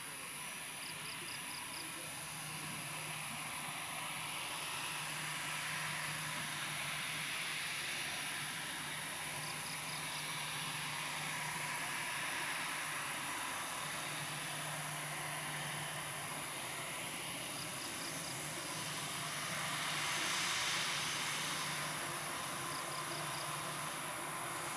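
Airliner jet engines running at low power after landing, a steady rushing sound that swells about twenty seconds in, with insects chirping in short quick groups every several seconds and a thin steady hiss from the camcorder.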